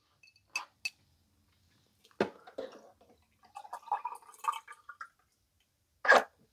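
Quiet handling sounds at a vertical juicer: a sharp knock about two seconds in, then a scattered patch of faint drips and small clinks as a glass jar catches watermelon juice at the spout, with another short sound near the end.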